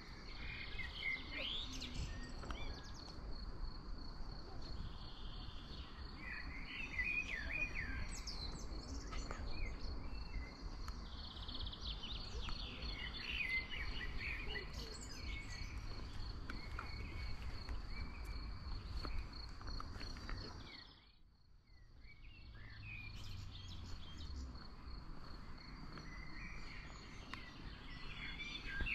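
Outdoor ambience of songbirds chirping and singing in short phrases, over a steady high-pitched pulsing insect-like buzz and a low rumble. The sound drops out briefly about two-thirds of the way through, then resumes.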